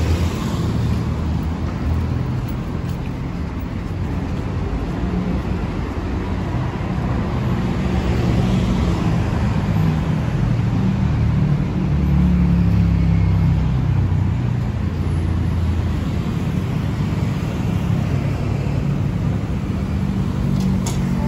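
Busy city road traffic: a steady rumble of passing motor vehicles that swells for a couple of seconds a little past halfway.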